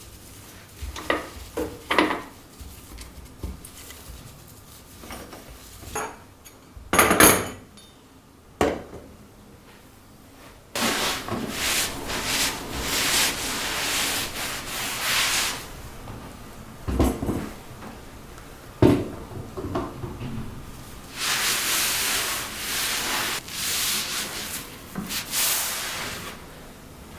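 Household cleaning by hand: a few light knocks and handling clicks, then two long stretches of repeated rubbing strokes as a surface is scrubbed.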